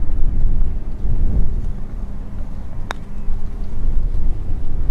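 Wind rumbling on the microphone, with a single sharp click about three seconds in: a putter striking a golf ball.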